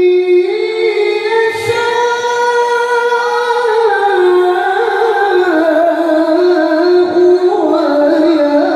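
A man's high solo voice reciting the Qur'an in the melodic tilawah style over a PA system: long held, ornamented notes, one continuous phrase that steps gradually down in pitch.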